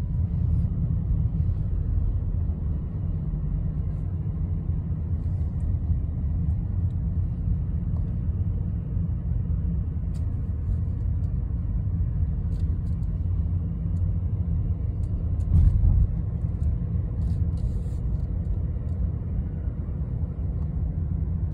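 Steady low rumble of a car driving, heard from inside the cabin: engine and tyre noise on the road, with a brief louder bump about three quarters of the way through.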